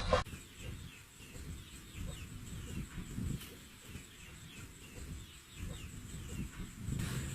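A bird calling in a quick series of short, falling chirps, over a low rumble.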